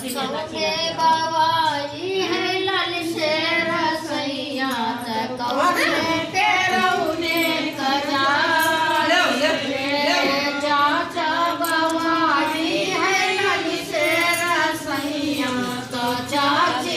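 A group of women singing a folk song together, their voices overlapping, through the whole stretch.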